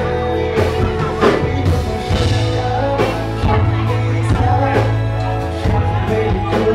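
A live rock band playing, with a steady drum beat, a heavy bass line and some singing.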